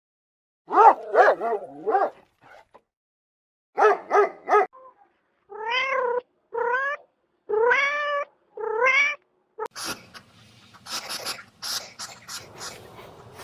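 Domestic cat meowing: a quick run of short mews, then three more, then four longer drawn-out meows that rise and fall in pitch. About ten seconds in these give way to soft, irregular rustling and clicks as an echidna noses through grass.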